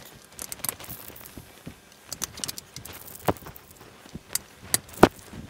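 Small clicks, taps and rustles of steel linear bearings and 3D-printed plastic parts being handled and fitted together on a wooden table. A couple of sharper knocks stand out, the loudest about five seconds in.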